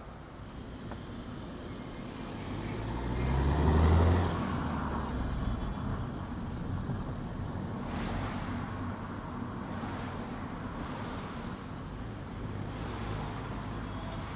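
A car driving on a road, with steady engine and tyre noise. It swells to a louder low rumble that peaks about four seconds in, then settles back to a steady run.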